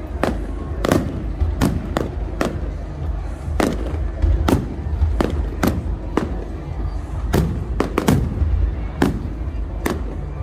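Aerial fireworks display: more than a dozen sharp bangs from bursting shells at irregular intervals, about one a second, over a steady low rumble.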